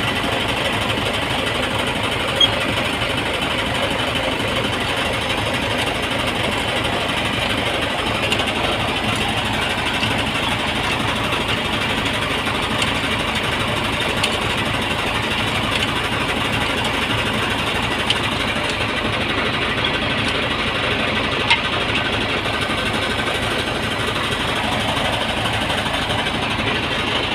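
A machine running steadily with a fast, even rattle, with a few faint clicks over it.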